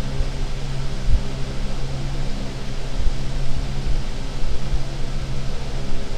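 Harsh noise wall music: a dense, unchanging wall of noise with no rhythm or melody, heaviest in the low end. A steady low hum runs under it and fades about four seconds in.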